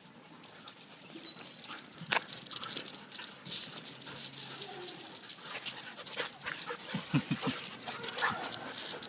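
Dogs, among them an Alaskan Malamute, playing on concrete: paws scuffing and claws clicking, with panting close by and a quick run of short low dog sounds about seven seconds in.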